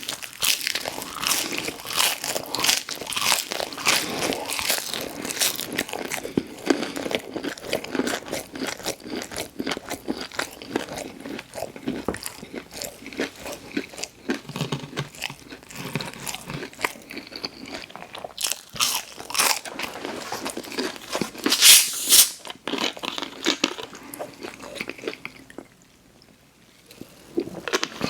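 Close-miked eating: repeated crunchy bites and chewing, with one especially loud bite about two-thirds of the way through and a brief pause near the end.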